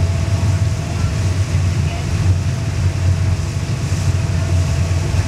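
Steady low drone of a ship's engine under way, with a faint steady hum above it and a hiss of wind and water.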